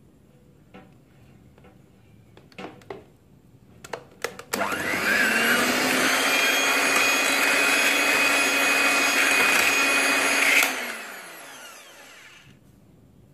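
Morphy Richards electric hand mixer whipping cream to stiff peaks: a few light knocks, then the motor is switched on about four and a half seconds in and runs at a steady high whine. About ten and a half seconds in it is switched off and the beaters wind down.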